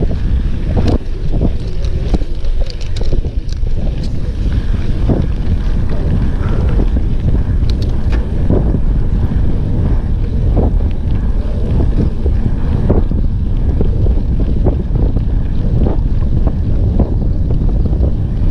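Wind buffeting the microphone of a mountain bike rider's action camera while riding at speed, with scattered short clicks and knocks from the bike.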